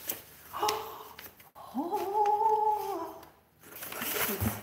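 Sheets of paper rustling as they are lifted out of a cardboard box. A woman's voice gives a short vocal sound just under a second in, then a drawn-out hummed note that slides up, holds steady for over a second and drops away.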